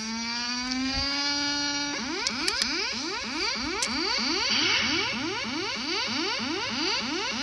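Electronic synthesizer music: a held tone sliding slowly in pitch, then, about two seconds in, a fast repeating rising sweep of about four a second.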